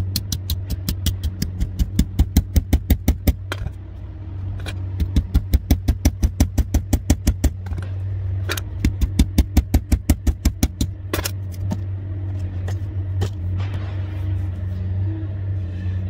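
Rapid hammer taps on the spine of a Benchmade Freek folding knife, batoning the blade down through a small pine branch to split it. The taps come in quick runs of about six a second, three runs with a few single harder blows between. A steady low engine hum, as from a vehicle idling, runs underneath.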